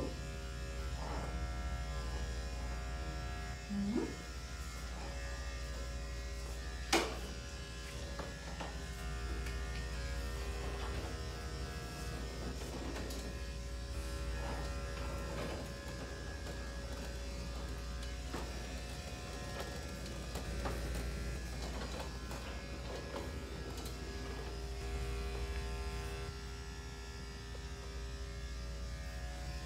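Corded electric dog grooming clipper running steadily with a buzzing hum as it shaves a matted puppy coat, with a sharp click about seven seconds in.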